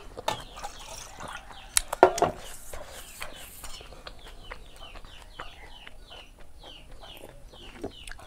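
Chicks peeping over and over in short, falling chirps, a few a second, with a few sharp clicks about two seconds in.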